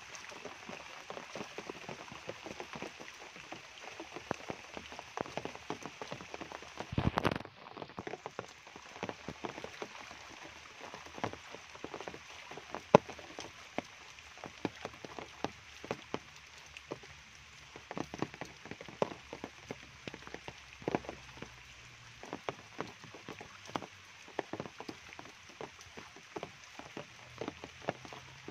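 Steady rain falling on foliage, mud and puddles, with many separate heavy drops striking close by. A short loud burst of noise comes about seven seconds in.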